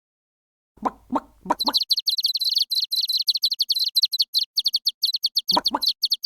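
Hen clucking a few short times while chicks peep in a fast, continuous run of high chirps, as a cartoon sound effect.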